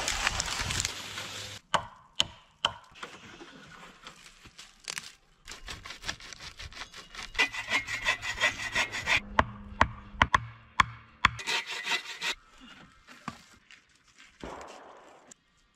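Log-shelter building work in short, abruptly cut sections: wood being sawn in runs of repeated strokes, poles rubbing and scraping, and sharp knocks of wood on wood.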